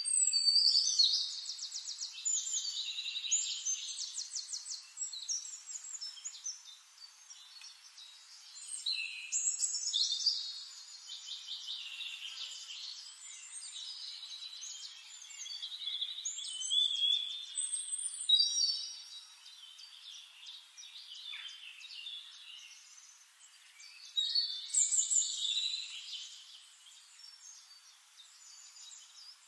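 A songbird singing in repeated bouts of rapid, bubbling trills and warbled phrases, each bout a few seconds long, with quieter chirps between them.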